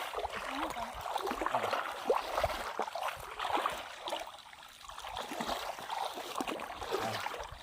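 Shallow water sloshing and trickling, with many small irregular splashes, as the water is stirred by wading and scooping with a hand fishing net.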